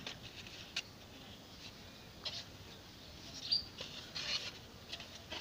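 Faint, scattered rustles and light taps of a thin plastic dustpan, cut from a plastic canister, being picked up and flexed by hand.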